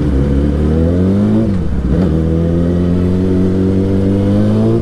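Yamaha R6 sportbike's inline-four engine accelerating under way. Its pitch climbs, drops sharply about a second and a half in as it shifts up a gear, then climbs slowly again.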